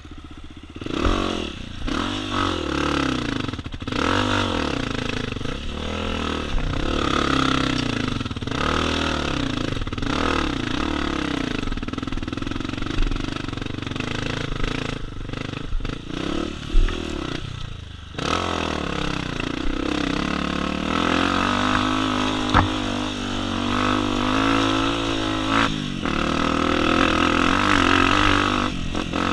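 Honda CRF250F dirt bike's single-cylinder four-stroke engine being ridden, revving up and dropping back over and over, then holding a higher, steadier pitch for the second half. A few sharp knocks come through.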